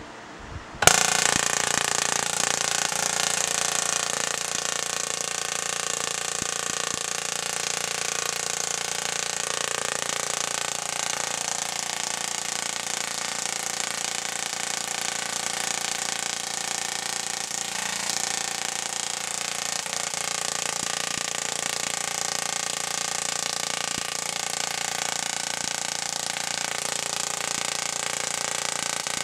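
Small solid-state Tesla coil firing streamer arcs into the air: a steady, even electric buzz from the sparks at the interrupter's pulse rate, which starts abruptly about a second in.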